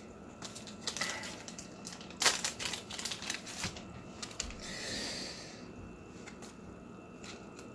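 Trading cards being handled and a card slipped into a plastic sleeve: a run of small clicks and taps, with a brief soft rustling slide about five seconds in.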